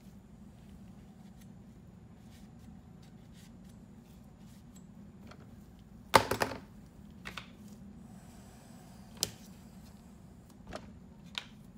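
Handling noise at a workbench as gloved hands clean up epoxy with a paper towel and pick up a wooden test block: a few sharp clicks and knocks, the loudest a clack about six seconds in, over a steady low hum.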